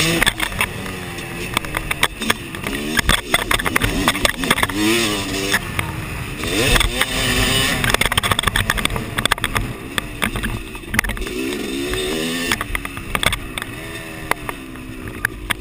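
Yamaha motocross bike's engine revving up and falling back again and again as it is ridden, heard from the rider's camera. Frequent sharp knocks and clatter run over the engine.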